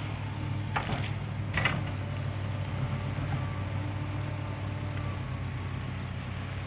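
Excavator's diesel engine running at a steady drone, with two short noisy sounds about a second apart near the start.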